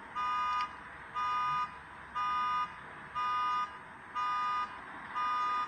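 An electronic alarm beeper sounding six even beeps, about one a second, each a steady two-note tone lasting about half a second.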